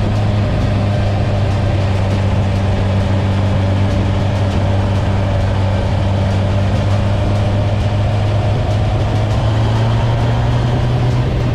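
Honda CB1000R inline-four engine with a G&G exhaust, baffle fitted, running steadily at constant revs with a low, even drone; the pitch rises slightly near the end.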